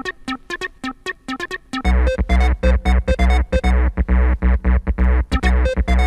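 Electronic background music: quick, evenly repeating synth notes, joined about two seconds in by a deep bass and a fuller, louder beat.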